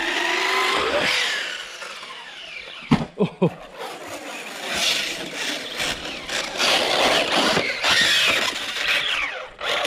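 Traxxas Rustler 4x4 electric RC truck driving, its motor whining up and down in pitch over a harsh, nasty-sounding crunching from the drivetrain, which the owner suspects is the front diff.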